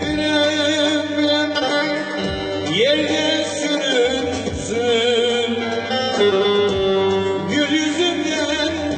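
A man singing a Turkish folk song in long, wavering held notes, accompanying himself on a plucked bağlama (long-necked saz).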